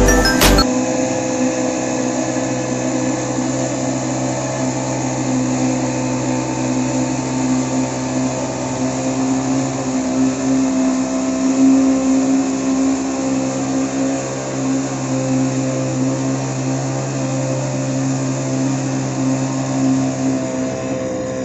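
Small engine of a motorized rice transplanter running steadily at an even pitch.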